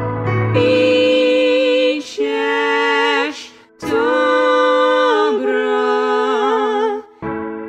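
A lullaby sung in long held notes with vibrato and slow glides between pitches, with little or no instrumental backing. There are short breaks for breath about two seconds in, a longer one halfway through, and another near the end.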